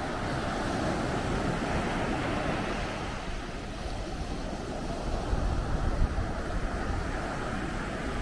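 Ocean surf washing onto a beach as a steady, even wash of noise. It swells in the first couple of seconds and is louder and lower, with a gusty rumble, about five to six seconds in.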